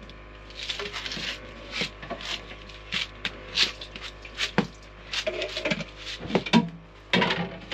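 Hands working flour tortilla dough on a floured board, with rubbing and scraping as a plastic jar is rolled across it. Irregular knocks and clatter as the jar and a glass are picked up and set down, the loudest knocks near the end.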